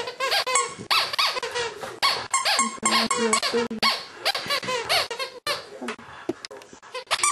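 A dog whining and squealing in a rapid series of short, high-pitched cries that rise and fall in pitch, begging for a treat held above it. The cries get sparser and quieter after about five seconds.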